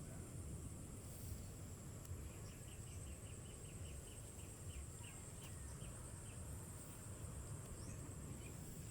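Faint outdoor insect chorus: a steady high trill, with a run of about a dozen short chirps a few seconds in, over a low rumble.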